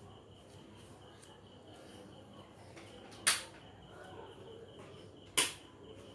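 Two sharp clicks about two seconds apart as hands handle small craft pieces and wire on a mat, over a faint steady background hiss.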